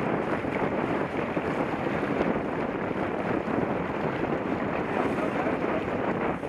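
Wind buffeting the microphone and water rushing along the hull of a heeled sailboat under way, a steady, unbroken rushing noise.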